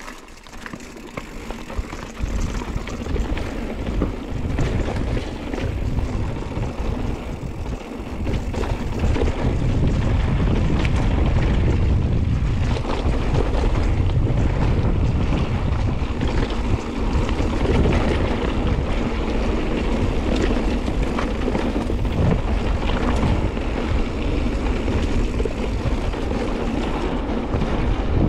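Mountain bike riding a dirt trail: wind rushing over the microphone together with tyre noise and the rattle of the bike over bumps. The noise grows louder over the first ten seconds or so as speed builds, then stays steady.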